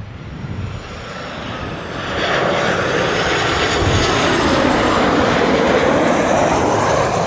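Airliner on final approach passing low overhead, its engine noise swelling about two seconds in and staying loud.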